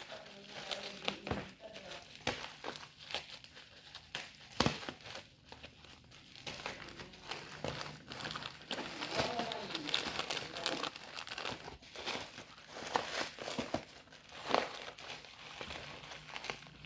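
Bubble-wrap plastic packaging crinkling and crackling in irregular bursts as it is handled and cut open with scissors.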